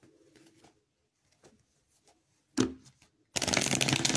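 Tarot cards being handled: faint small clicks, a single knock about two and a half seconds in, then from just past three seconds a loud, rapid shuffling of the deck.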